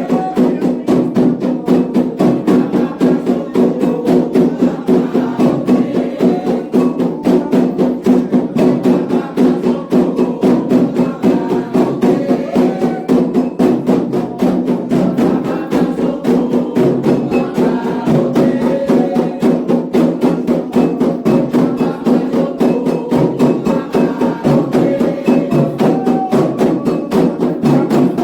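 Candomblé ritual drumming for the xiré: atabaque hand drums and a struck bell playing a fast, steady, unbroken rhythm.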